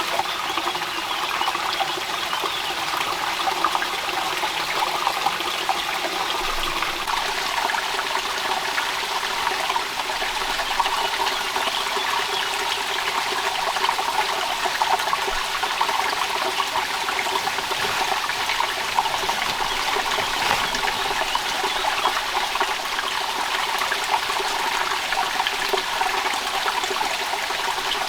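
Rain falling steadily, a continuous rushing hiss dense with fine drop impacts.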